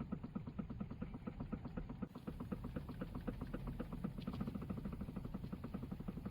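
Rapid, even knocking from the steering column and power steering of a Toyota Vellfire/Alphard, over a low engine hum. This is the abnormal noise commonly heard from around the steering wheel on these models, which the uploader links to their power steering unit.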